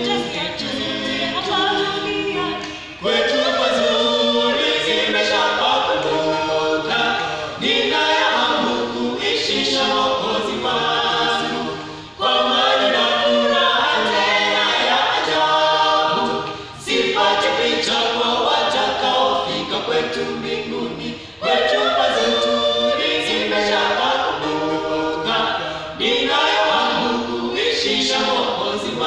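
Small mixed group of women's and men's voices singing a cappella in harmony, in phrases with short breaks between them.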